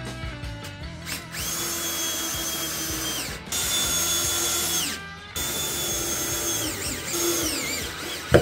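Cordless drill running into a wooden board in three bursts of about two seconds each, a steady whine, with a falling whine as the motor winds down at the end of the last burst. A sharp knock just before the end.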